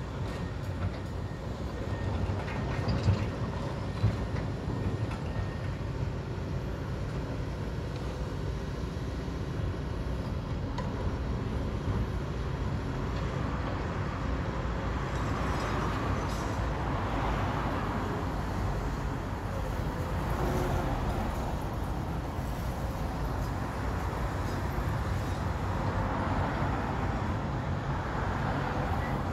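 Tracked excavator engines running with a steady low rumble while the bucket works a pile of brick demolition rubble. A couple of knocks come a few seconds in, and later there are swells of rattling rubble noise.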